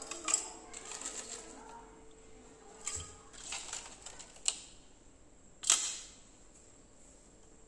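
Scattered clicks and knocks of raw crab pieces and shells being handled in a ceramic bowl and dropped into a blender jar, about five in all, the loudest about six seconds in.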